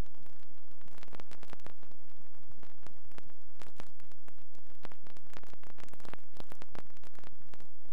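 Steady static hiss with frequent irregular crackles and pops and a faint low hum, the noise bed of a transfer of silent 8mm film.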